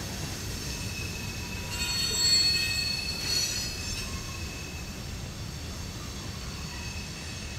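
Freight train tank cars rolling through a curve, their wheels squealing in several steady high tones over the continuous low noise of wheels on rail. The squeal swells loudest about two to three and a half seconds in.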